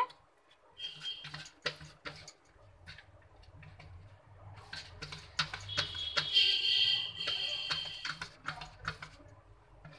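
Fresh chhena being mashed by hand against a steel plate: soft scraping with light irregular clicks and taps. About six seconds in, a high squeak runs for roughly two seconds.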